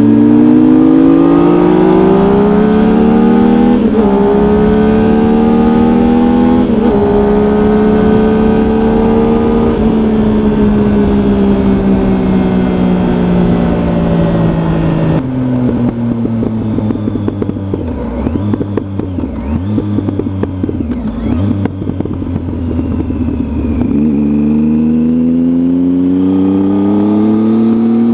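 Triumph Tiger motorcycle engine heard while riding. It accelerates up through the gears with two upshifts in the first several seconds, holds a steady pace, then eases off and settles to a low, uneven idle about halfway through. Near the end it revs up again as the bike pulls away.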